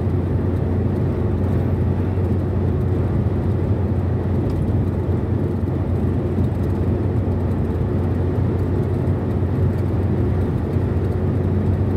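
Steady, low-pitched road and engine noise heard inside a car's cabin while cruising on a highway.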